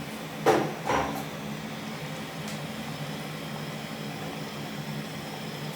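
Two short knocks of a utensil against the pan of simmering cream sauce, about half a second apart, over a steady low hum.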